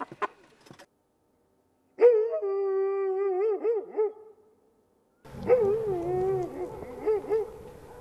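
A dog howling: two long howls, each held on one pitch and wavering up and down before it ends, the first about two seconds in and the second about five and a half seconds in over a faint steady hiss. A few faint clicks come just before the first.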